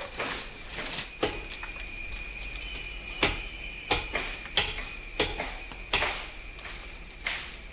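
A series of sharp knocks, coming about once every two-thirds of a second through the middle of the stretch, over a steady faint high-pitched whine.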